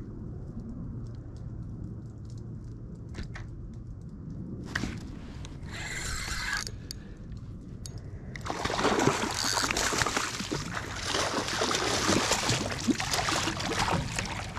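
Water sloshing and splashing around a kayak. It starts as a low, steady rumble with a few light clicks and turns into a much louder, continuous splashing from about eight seconds in.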